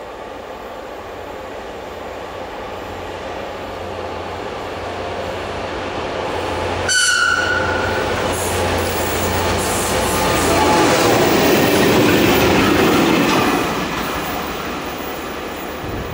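Diesel locomotive LJ M36 approaching and passing at speed. It gives one short horn blast about seven seconds in. The engine and wheel noise grow steadily louder and are loudest as it goes by, then begin to fade.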